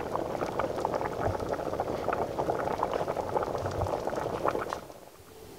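Thick tomato stew bubbling and popping in a pot on the stove, a dense run of small blips that stops near the end.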